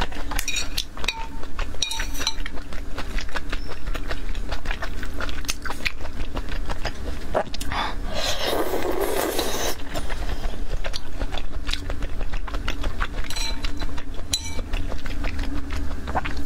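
Close-miked eating sounds: wet chewing and mouth clicks on soft salmon in a spicy sauce, over a low steady hum. About eight seconds in there is a long loud slurp as strips of salmon are sucked up from the sauce.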